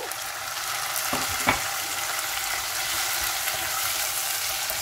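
Diced tomatoes and green chili sizzling in hot oil with onion, garlic and ginger in a stone-coated pot, stirred with a wooden spoon. A steady frying hiss, with two light knocks against the pot about a second and a second and a half in.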